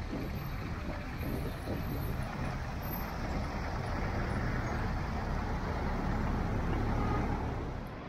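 Street traffic: cars and a city bus driving past, a steady engine-and-tyre rumble that grows a little louder toward the end and then drops off.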